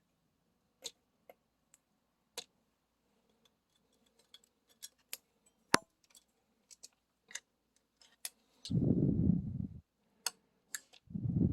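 Scattered small clicks and ticks of hands and tools working on a graphics card's cooler, unplugging the small lighting connectors. Near the end come two dull, low bumps, each lasting about a second.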